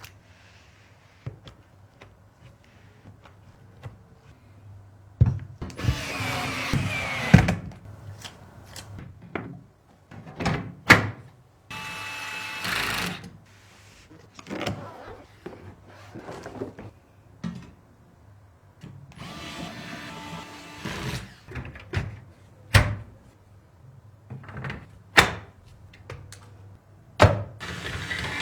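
Computer parts being handled and fitted together: a run of sharp clicks and knocks of plastic and metal pieces, with a few stretches of rustling or scraping lasting a second or two.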